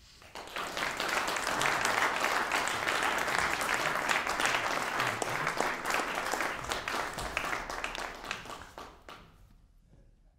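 Audience applauding: clapping starts about half a second in, stays dense, then thins out and fades away over the last two seconds.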